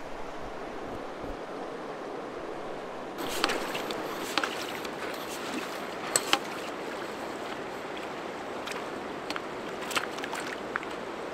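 Steady rushing of river water. About three seconds in the sound turns brighter, and scattered sharp clicks begin.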